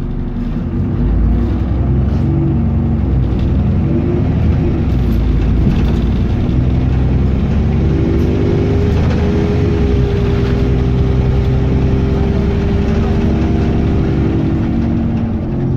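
Alexander Dennis Enviro400 double-decker bus engine accelerating, getting louder about a second in, its pitch stepping as the automatic gearbox changes. A steady whine sits over the engine through the middle; the uploader cannot identify this odd acceleration noise.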